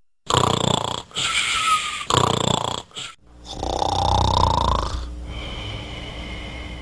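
Snoring dubbed onto a sleeping cartoon dog: three loud snores, then a longer snore with a whistle that rises in pitch. A quieter steady sound follows.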